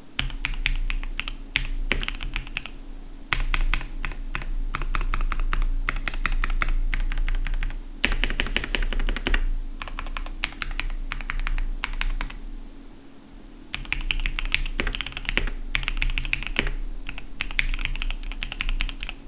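Fast typing on a Keychron V1 Max custom mechanical keyboard with factory-lubed Gateron Milky Yellow Pro linear switches and GMK keycaps: dense runs of key clacks in bursts, with a short lull about two-thirds through.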